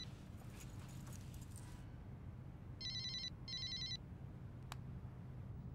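Mobile phone ringing with a trilling double-ring tone: one ring just ending at the start and another about three seconds in, over a low steady hum, with a faint click near the end.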